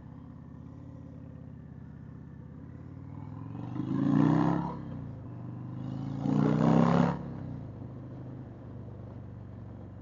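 Indian Chieftain V-twin motorcycle engine running under way. The throttle opens up twice, about four and six and a half seconds in, making the bike briefly much louder before it settles back to a steady cruise.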